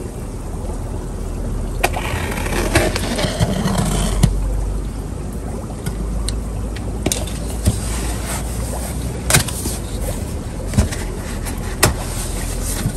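Tape being peeled off a cardboard box and the box handled: a noisy stretch of peeling about two to four seconds in, then a handful of sharp clicks and taps, over a steady low rumble.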